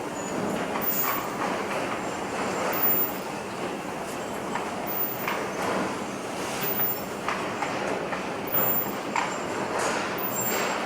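Electronics assembly-line noise: a steady mechanical rumble and hiss with scattered light clicks and clinks of parts being handled, and a faint high tone that recurs about every second and a half.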